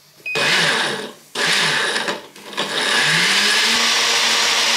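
Tefal countertop blender blending a milk-and-fruit smoothie. The motor runs in two short pulses of about a second each, then runs continuously, its pitch rising briefly as it comes up to speed.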